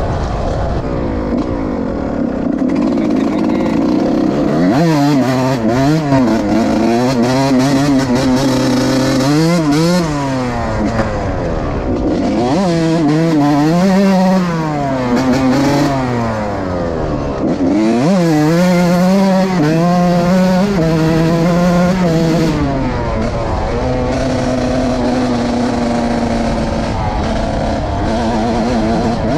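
Suzuki RM 125 two-stroke single-cylinder motocross bike engine revving hard. Its pitch climbs and drops again and again as the throttle is opened and closed, then settles to a steadier, lower note near the end.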